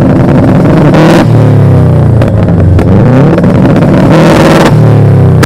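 Subaru flat-four engine free-revved hard while stationary, heard close to the exhaust. The pitch climbs and falls over and over, peaking hardest about a second in and again near the end.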